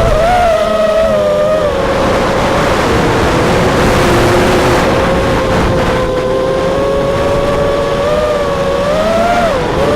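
FPV quadcopter's brushless motors and propellers whining over rushing wind noise, the pitch rising and falling with the throttle. The pitch climbs again near the end, then drops sharply.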